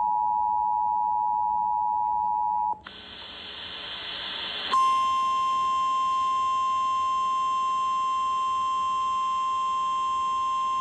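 Emergency Alert System attention signal, a steady two-tone beep, cutting off about two and a half seconds in. A couple of seconds of hiss that grows louder follow, then a single steady, slightly higher alert tone starts, the NOAA Weather Radio warning alarm tone that leads into a relayed National Weather Service warning.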